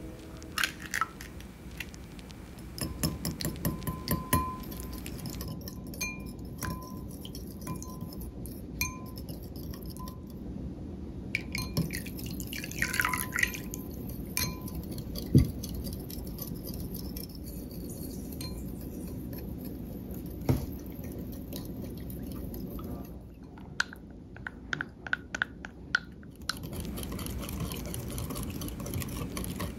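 A small wire whisk beating a runny egg mixture in a glass bowl. The metal wires clink and tap against the glass over a wet swishing, with runs of quick clicks.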